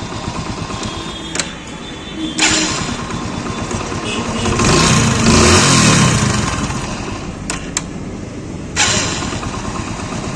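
Hero Splendor Plus's single-cylinder engine idling, revved up once in the middle and settling back. Its self-starter has just been serviced with a cleaned brass bush and greased bearings, and the run is clean, with no grinding from the starter.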